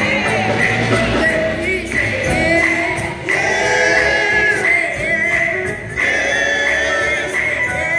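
Live gospel music: several singers on microphones singing together, backed by keyboard, electric guitar, bass guitar and drum kit.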